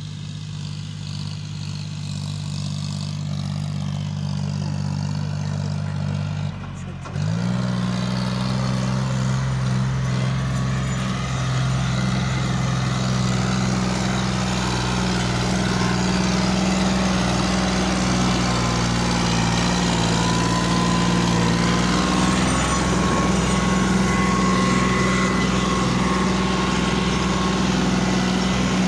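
John Deere 5050D tractor's three-cylinder diesel engine running steadily under load as it pulls a fully loaded trolley through sand, getting louder as it comes near. There is a short break about seven seconds in.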